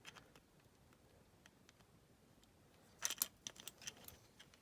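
Small parts of a diecast model clicking and tapping as the cabin interior is offered into the body: a quick cluster of sharp clicks about three seconds in, after a quiet stretch.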